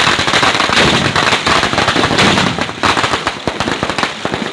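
Firecrackers packed into a burning Ravan effigy going off in a rapid, dense string of loud bangs and crackles.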